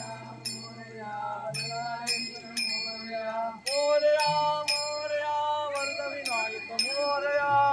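Devotional music: a male voice sings long held notes over a steady drone, with short metallic strikes keeping the beat.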